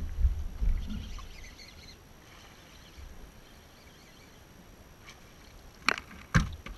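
A low rumble that fades over the first two seconds, faint high chirps, then a few sharp knocks near the end as a hooked bass is swung aboard and strikes the bass boat's deck.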